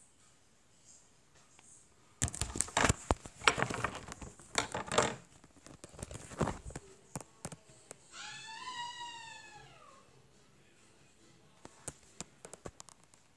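Phone handled close to the microphone, giving a few seconds of loud rustling and knocking. A single drawn-out high call then rises and falls in pitch for about two seconds, and a few light clicks come near the end.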